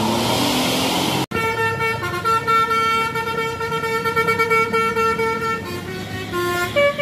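Indonesian bus 'telolet' multi-tone musical air horn playing a tune: one long held note, then a run of short notes stepping up and down in pitch near the end. It is preceded by a second of noisy sound that cuts off abruptly.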